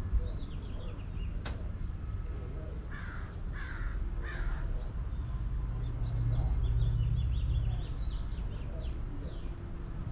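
A crow cawing three times in quick succession. Faint high chirps from small birds and a low rumble run underneath.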